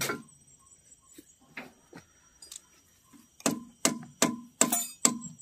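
Sharp metallic taps, about two or three a second and each with a short ring, starting about three and a half seconds in, from a tool working on lead-acid truck battery terminal clamps.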